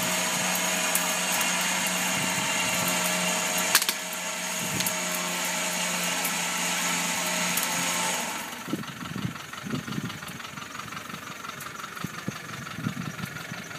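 Vehicle front-bumper winch running under load, a steady whine, hauling a cut tree along the ground by its cable; it stops abruptly about eight seconds in. Quieter irregular knocks and rustling follow.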